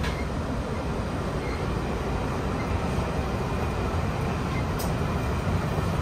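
Steady running noise of a Taiwan Railway 'Round-the-Island Star' tourist train carriage in motion, heard from inside: a low rumble with a faint click right at the start and another about five seconds in.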